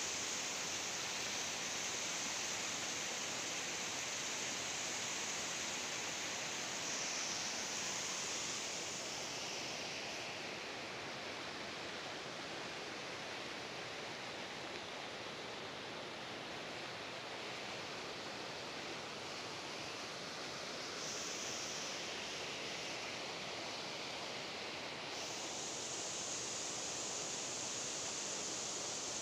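Water pouring over a stepped concrete weir and churning in the channel below: a steady rushing noise.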